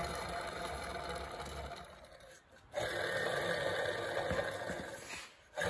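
Worn bearing in a mini bike torque converter grinding as the converter is spun, twice, each spin fading away over a couple of seconds. It is making a lot of noise: the bearing is worn out and the shaft has a lot of end play.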